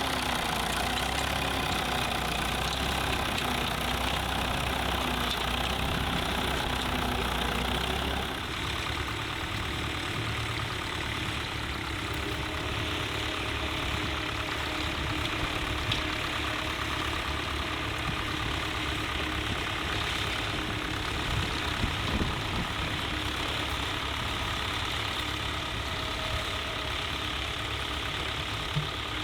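Tractor engine running steadily, its sound changing about eight seconds in.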